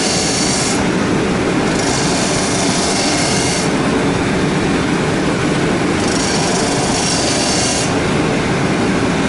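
Bench-mounted abrasive wheel spinning with a steady whir while a small steel knife part, held in pliers, is pressed against it in passes. A high grinding hiss comes and goes several times as the part touches and leaves the wheel.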